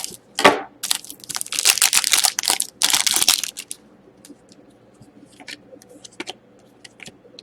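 A foil trading-card pack being torn open, the wrapper crinkling in loud rustling bursts for about three and a half seconds, then quieter scattered clicks and rustles as the cards are handled.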